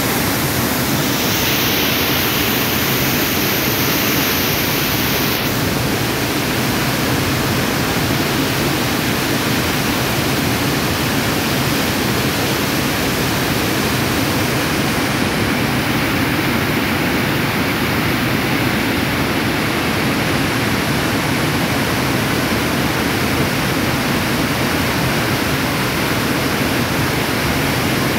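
Mountain river rapids: white water rushing over and around boulders, a loud, steady, even rush of water.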